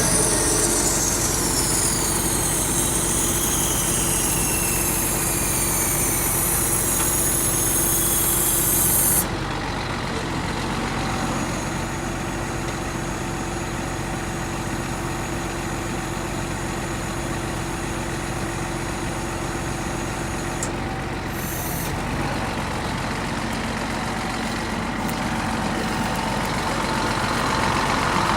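Heavy diesel engine of a truck-mounted concrete pump running steadily. High whining sweeps fall in pitch over the first several seconds, and about nine seconds in the sound drops suddenly to a lower, steadier running.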